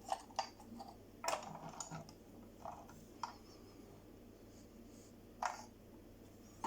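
Scattered small clicks and knocks from a toy combine harvester being handled, its hard parts tapping and clicking, with a louder knock about a second in and another near the end.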